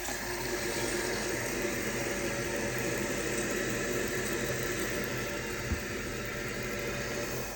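Toilet-tank silent fill valve running, refilling the tank with a steady hiss of water after its float has been set higher.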